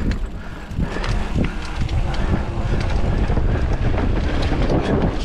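Wind buffeting the microphone of a camera carried by a mountain biker on a dirt-trail descent. Tyres roll over dirt, and the bike knocks and rattles over bumps.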